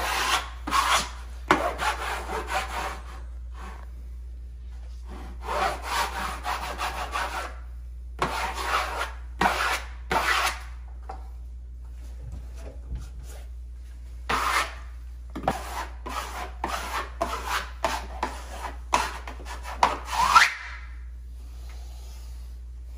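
Plastic wallpaper smoother rubbed firmly over grasscloth wallpaper, pressing down a seam in groups of repeated strokes with pauses between. A short rising squeak comes near the end.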